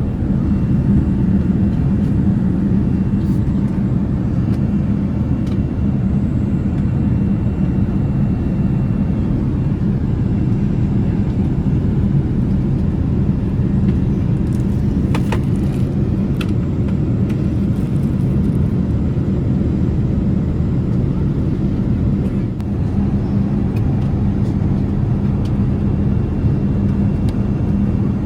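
Boeing 787-8 airliner cabin noise: a steady low rumble of engines and airflow with a constant hum, and a couple of brief clicks about halfway through.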